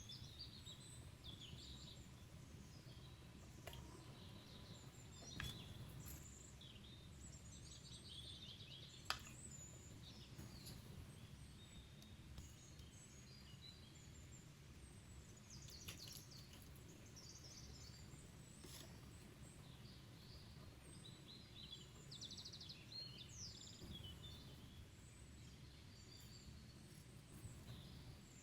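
Near silence: faint background rumble with small birds chirping softly and intermittently, and a few light clicks, the sharpest about nine seconds in.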